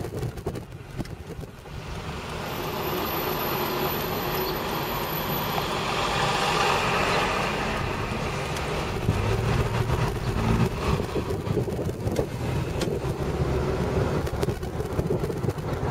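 Road and traffic noise from a moving car, with a bus passing close alongside: its noise swells over a few seconds, peaks about halfway through, then eases into a lower rumble.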